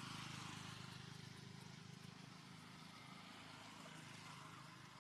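Faint, steady hum of a motor vehicle's engine, a little louder at the start.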